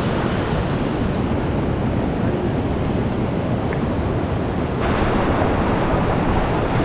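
Steady rush of whitewater pouring through a creek rapid. The sound grows brighter and hissier about five seconds in.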